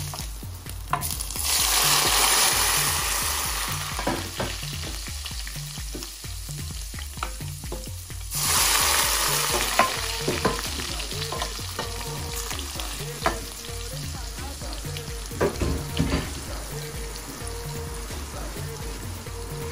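Hot palm oil poured into a pot of sliced onions, green peppers and boiled beans, sizzling loudly as it hits in two surges, about a second in and again about eight seconds in. Between and after the surges it settles into a steady frying crackle with scattered pops.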